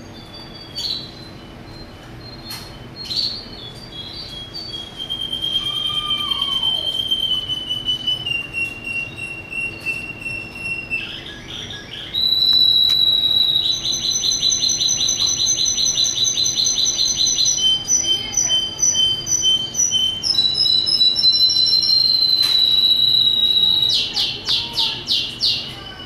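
Russian crested canary singing: a few short calls, then a long song of held whistled notes and fast trills, louder from about halfway in and ending in a run of quick loud notes.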